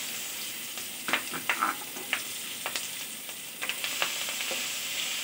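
Sliced onions and green chillies sizzling in hot oil in a wok, just added to fry. A few short knocks and scrapes come as they are stirred with a wooden spatula.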